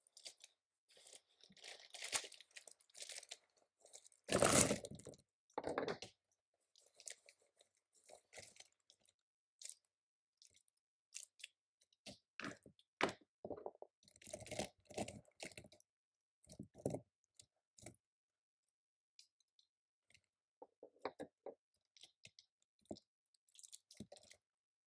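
Keyboard typing: irregular clusters of short key clicks with pauses between them, and one louder, longer noise about four seconds in.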